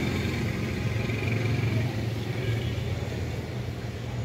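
A steady low mechanical rumble, like an engine running, under a faint even background hiss.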